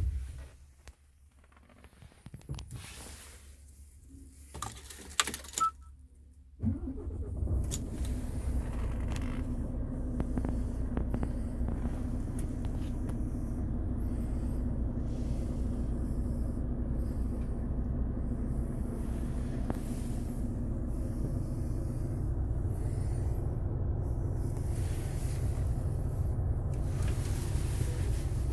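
Renault T480 truck's 13-litre six-cylinder diesel engine started about six and a half seconds in, then idling steadily, heard from inside the cab. Before the start, a few light clicks and a key rattle.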